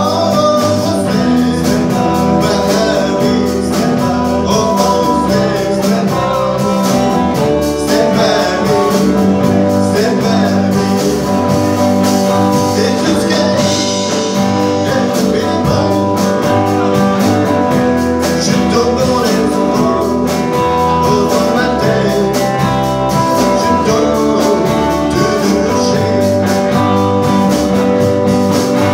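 A live band playing a song: a man singing lead over electric guitars, upright double bass and a drum kit, with a steady beat.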